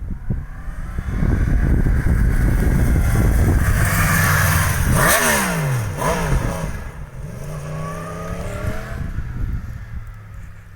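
Yamaha FZ-10's stock-exhaust crossplane inline-four passing by: loud as it approaches, dropping sharply in pitch as it goes past about five seconds in, then pulling away under acceleration and fading.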